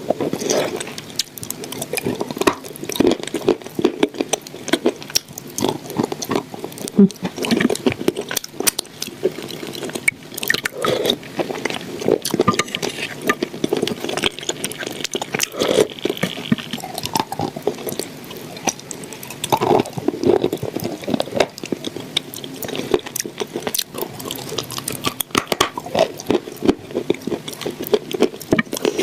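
Close-miked wet chewing and squishing of food: a continuous run of irregular moist clicks and crackles.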